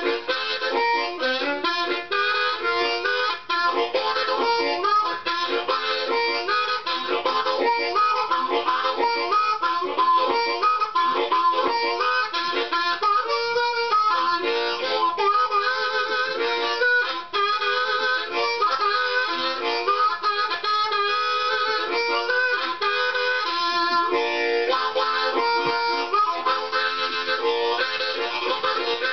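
Harmonica played solo in a train-imitation style: a fast, steady rhythm of short chords, imitating a train.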